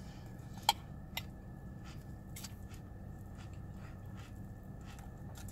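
Mouth sounds of chewing a spoonful of Cocoa Pebbles cereal in milk, with two sharp clicks of a metal spoon a little under a second in, then small faint ticks. A steady low hum runs underneath.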